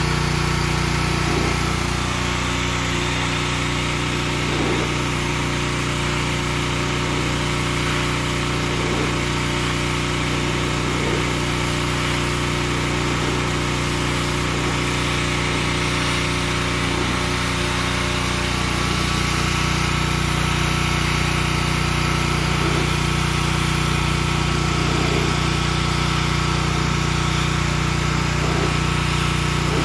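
Pressure washer's engine running steadily, with the hiss of its high-pressure water jet spraying across brick pavers.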